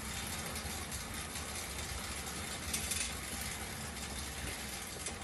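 Schwinn air-resistance exercise bike's fan wheel whirring steadily as it is pedalled, a continuous rushing of air from the spinning blades.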